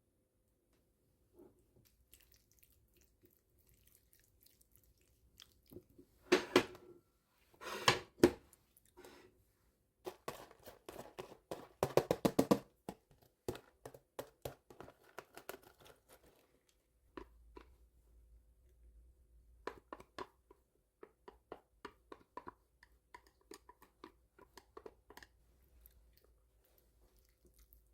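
Close-up kitchen handling noises of food preparation: two loud rustling or tearing bursts, a quick run of rapid clicks, then scattered light clicks and taps.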